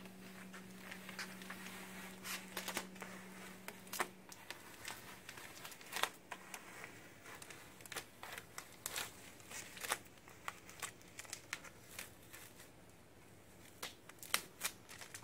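Vinyl paint stencil being peeled by hand off a painted pinball backbox: faint crinkling and crackling with many scattered sharp ticks. A faint low hum runs underneath for the first few seconds.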